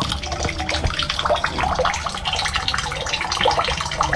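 Water running and splashing steadily, with a continuous fine crackle.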